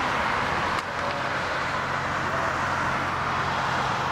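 Airbus A321-231's twin IAE V2500 turbofans at takeoff thrust: a steady, even jet roar as the airliner lifts off and climbs.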